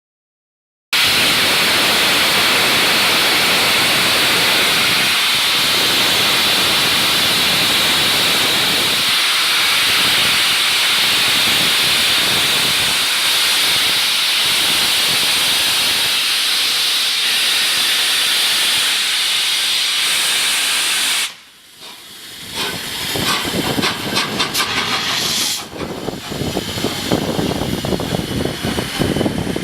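Steam from LNER Peppercorn A1 Pacific 60163 Tornado's three-cylinder locomotive hissing loudly and steadily for about twenty seconds. The hiss then cuts off suddenly, and after a short lull the locomotive starts away with rapid, uneven exhaust chuffs.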